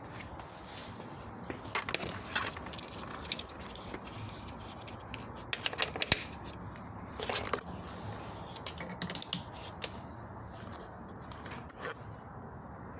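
Irregular clicks, scrapes and crackling of hard plastic parts and tools being handled and fitted in a car's engine bay, with several sharper knocks scattered through.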